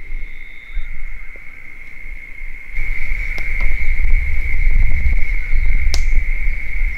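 Steady high-pitched insect trill, like a cricket, under a low rumble that grows louder about three seconds in, with a single sharp click near the end.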